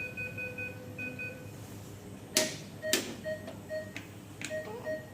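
Patient monitor alarms beeping in rapid repeated pulses: a higher two-tone beep for the first second and a half, then a lower beep about twice a second. A few sharp clicks or knocks cut in, the loudest near the middle.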